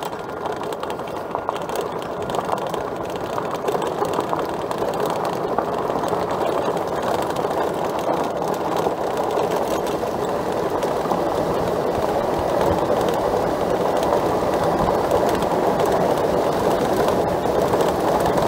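Electric bike rolling downhill on a dirt trail: a steady rumble of tyres over dirt with rattling from the bike, growing gradually louder as it picks up speed.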